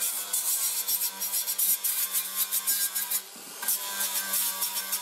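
Cordless angle grinder with a flap disc grinding the edges of a drilled steel plate: a steady motor hum under a harsh scraping hiss. The disc lifts off the metal briefly about three seconds in, then grinds on.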